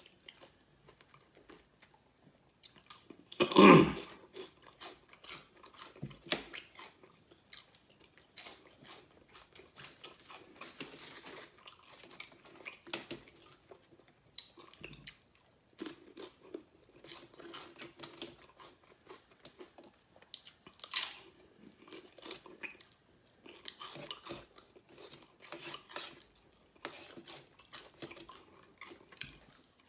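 Crunchy nacho tortilla chips being bitten and chewed close to the microphone, with repeated crisp crunches. One short, loud burst of noise comes about three and a half seconds in.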